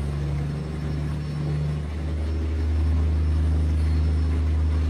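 Komatsu SAA12V140E-3 V12 diesel engine running under load on a dynamometer, a steady low drone. Its speed creeps up, and it grows louder about three seconds in.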